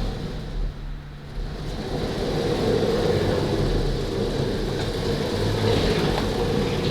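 CNC router gantry rolling along its Y-axis linear rails on its linear bearing blocks, moved by hand, with a steady rolling noise that eases briefly about a second in. One side's bearing is still a little noisy.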